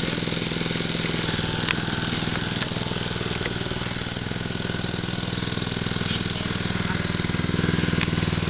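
The engine of a hydraulic power pack for rescue cutters and spreaders, running steadily at constant speed. A few sharp metallic clicks sound over it.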